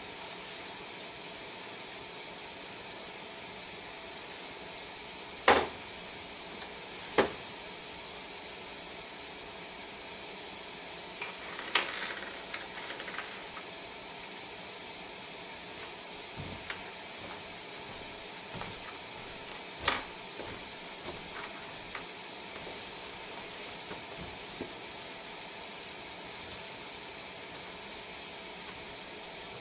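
Quiet room with a steady hiss, broken by a few sharp clicks and knocks, the loudest about five and a half, seven and twenty seconds in.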